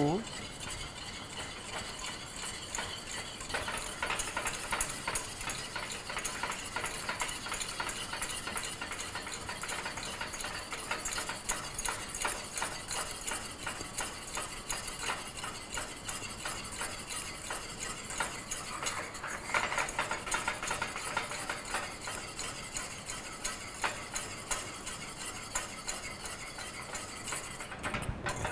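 Wire whisk beating egg yolks and water in a small stainless steel saucepan, a steady run of wires ticking and scraping against the pan as the mixture is cooked into a sabayon over low heat.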